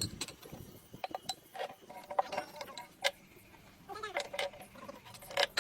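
Metal tools and parts clinking and tapping against each other in irregular, separate strikes, some with a short metallic ring.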